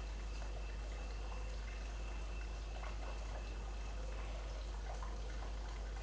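Night-time background ambience: a steady low hum with a thin, steady high-pitched tone that fades out about halfway, and scattered faint ticks and clicks.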